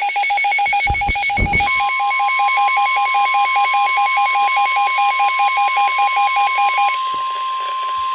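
Weather radio alert sounding: a fast, evenly pulsing electronic beep alarm, joined about two seconds in by a steady single-pitch warning tone. The beeping stops about seven seconds in, leaving the steady tone. It is the alarm that heralds a new warning broadcast, here a flood warning.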